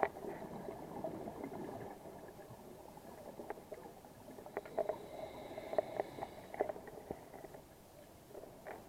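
Muffled underwater bubbling and gurgling from a diver's breathing, with scattered clicks and crackles, heard through a camera's underwater housing.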